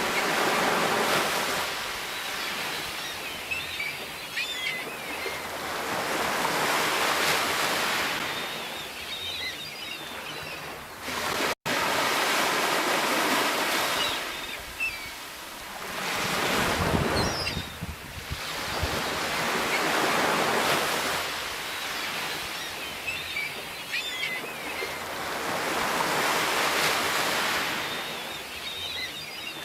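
Sea waves breaking and washing on the shore, the surf swelling and falling away every four to six seconds. The sound cuts out for an instant about a third of the way through.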